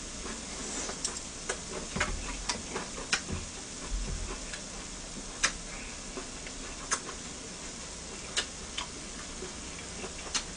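Hanwoo beef, scallop and shiitake mushrooms sizzling on a ridged grill pan: a steady hiss with irregular sharp pops and ticks of spattering fat, and a couple of soft low thumps.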